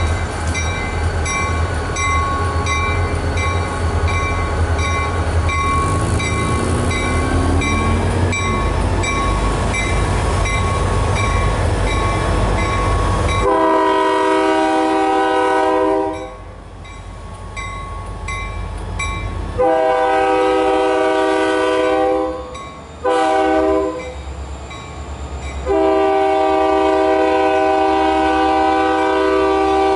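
A train's locomotive horn sounds the grade-crossing signal, long, long, short, long, starting about halfway through. This is the standard warning for a public road crossing. Before the horn, the locomotive's engine rumbles low, with a regular ringing tick about twice a second.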